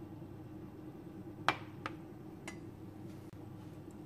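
A few sharp glass clicks, the loudest about one and a half seconds in, then two lighter ones, as small glass dessert cups are set down and handled on a glass-ceramic cooktop, over a steady low hum.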